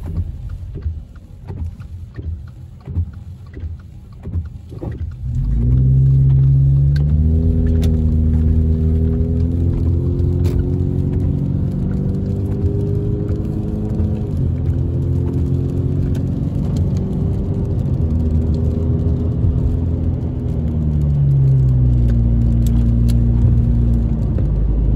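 Car engine and road noise heard from inside the cabin on a wet road. An uneven low rumble for the first few seconds, then from about five seconds in a steady engine drone as the car pulls away, its pitch stepping up or down a few times.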